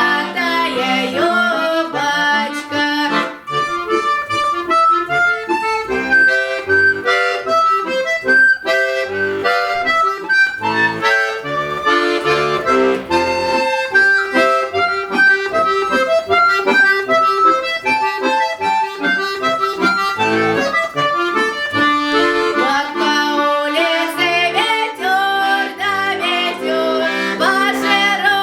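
Accordion playing an instrumental passage of a lively folk-style tune, with fast melodic runs over held bass chords and no voice.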